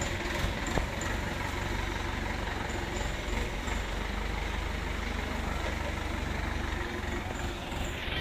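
Forklift engine running steadily as the forklift drives off with a load on its forks, with one short knock about a second in.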